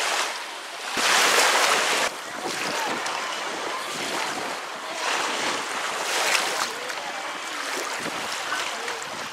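Small waves lapping in shallow lake water, with wind on the microphone; the noise rises and falls in surges.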